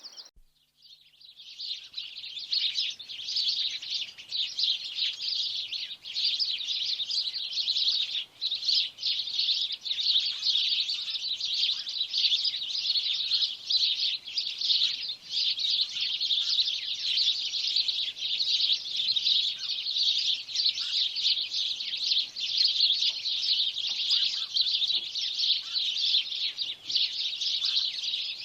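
Sparrows chirping: a dense, continuous chatter of many short overlapping chirps, as from a flock, fading in over the first couple of seconds.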